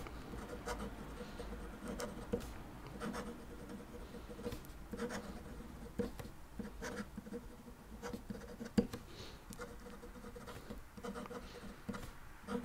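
Pilot Custom 74 fountain pen's extra-fine 14-karat gold nib scratching on paper as a sentence is written in cursive: a faint, irregular run of short scratchy strokes, with one sharper tick about nine seconds in. The scratch is the nib's feedback on the page, which the writer calls horrible.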